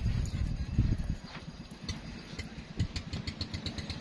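A small engine running, its even beat becoming clearer in the second half, over a low uneven rumble.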